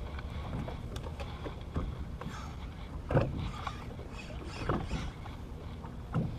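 Small fishing boat at sea: a steady low rumble and hiss, with three dull knocks about a second and a half apart in the second half.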